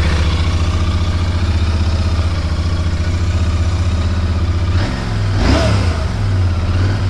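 Royal Enfield Interceptor 650's parallel-twin engine idling steadily. About five seconds in the throttle is blipped: the revs rise and then fall back.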